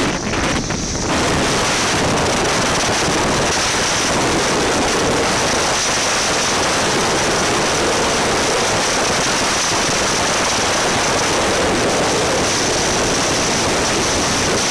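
Storm wind buffeting a phone microphone, with rain, as a tornado nears: a loud, steady rushing noise that settles in about a second in.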